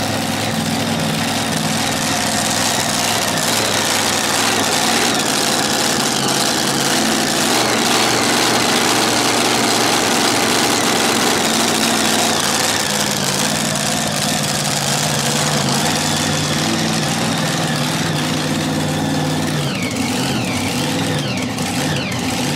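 Supercharged engine of a mini rod pulling tractor idling steadily, its pitch shifting a little about halfway through.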